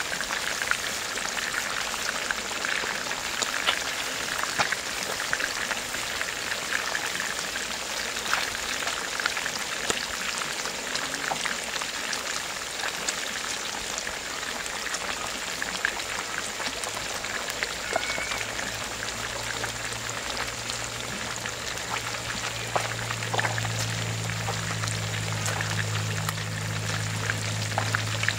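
River fish deep-frying in hot oil: a dense, steady crackle and sizzle of small pops. A low steady hum comes in about halfway and grows louder near the end.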